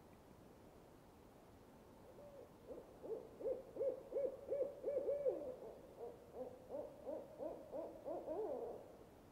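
An owl hooting: a long, quick series of short hoots, about three a second, starting about two seconds in, with a second, lower voice joining in during the later hoots.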